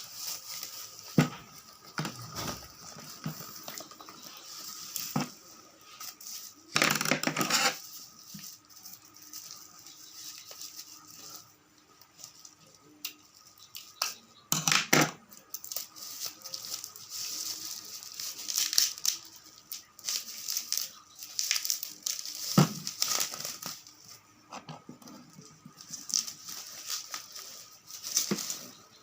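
Plastic packaging and bubble wrap being handled and opened by hand: scattered crinkles, rustles and light knocks, with two louder rips of about a second each, about a quarter and about half way through.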